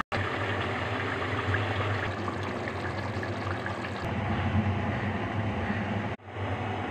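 Chicken karahi curry bubbling and sizzling in a pot on a gas stove, a steady crackling fizz over a low hum, cut off briefly about six seconds in.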